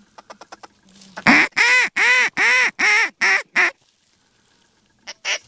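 A hand-blown duck call sounding a loud series of about seven evenly spaced quacks, then another quicker run of shorter quacks starting near the end.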